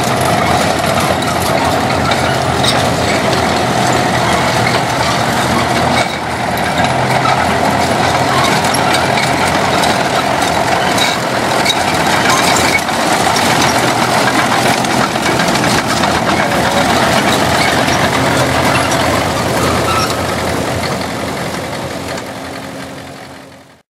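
International Harvester diesel crawler tractor running and moving, its engine keeping up a steady, rough note. The sound fades out over the last few seconds.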